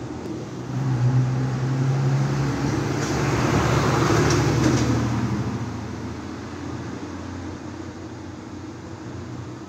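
A motor vehicle driving past, with engine hum and road noise swelling to a peak about four to five seconds in, then fading away.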